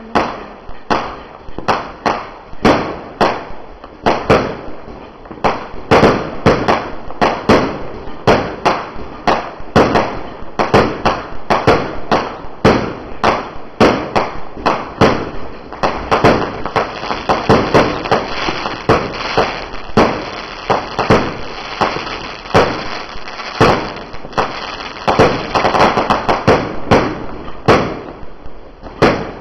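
A low-noise 1.4G consumer firework cake firing a long barrage, about two sharp shots and bursts a second, over a steady hiss between them.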